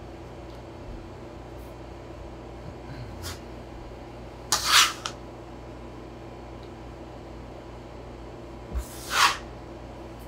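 A metal bench scraper scraping across a floured wooden counter as it scoops up crumbly potato gnocchi dough to fold it: two short scrapes about four seconds apart, each just after a light knock, with a fainter one before them. A steady low hum runs beneath.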